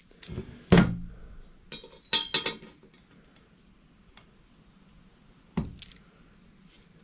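Steel parts handled on a bench: a sharp knock about a second in, a run of light metallic clinks around two seconds, and another knock near the end.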